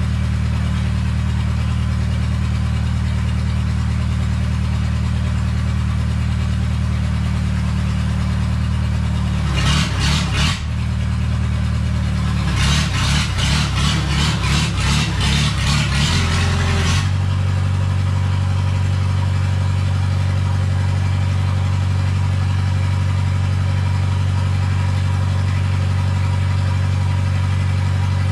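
A steady, loud engine-like drone with a short burst of clatter about ten seconds in and a longer clattery stretch from about twelve to seventeen seconds. After that stretch it settles back to the steady drone at a slightly different pitch.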